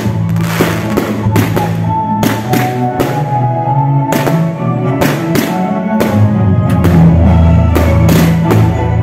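Music with a held bass line, mixed with the sharp, irregular bangs and crackle of fireworks going off.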